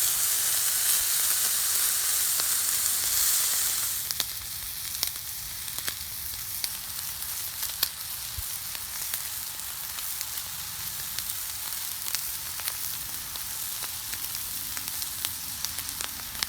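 Spencer (ribeye) steaks searing on a hot flat-top griddle, with a steady sizzle and scattered sharp pops of spattering fat. The sizzle is louder for the first four seconds, then settles lower.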